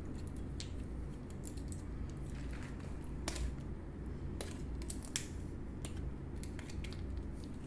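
Scattered faint clicks and scrapes of old batteries being taken out of a smart door lock's plastic battery holder, over a steady low hum.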